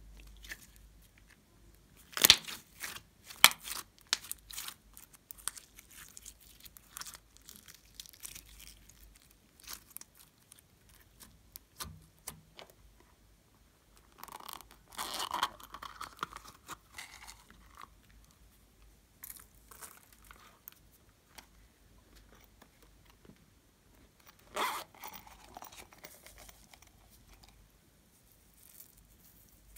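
Hands handling slime-making items: sharp clicks and snaps in the first few seconds, then scattered crinkling and tapping. A longer rasping, tearing-like sound comes about fifteen seconds in, and a shorter one near twenty-five seconds.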